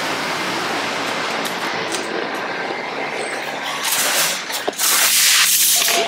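Metal wire shopping cart rattling as it is pushed across pavement, with a louder hissing rush for about a second near the end.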